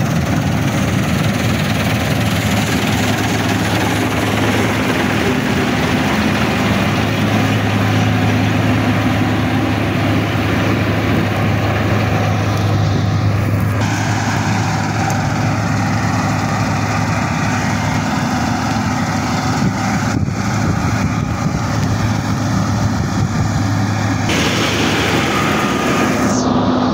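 New Holland 8070 combine harvester running in the field, its engine and threshing machinery giving a continuous low drone. The sound changes abruptly twice, about halfway and near the end.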